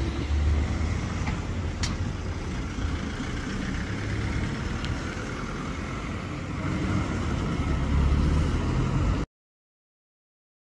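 Engine of a Mercedes Sprinter flatbed tow truck running as it drives, with street traffic around it. The low rumble swells a little, then the sound cuts out abruptly about a second and a half before the end.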